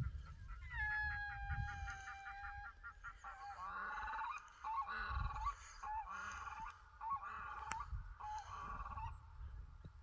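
Animal calls: one long, wavering call about a second in, then a run of about six shorter calls, over a low wind rumble on the microphone.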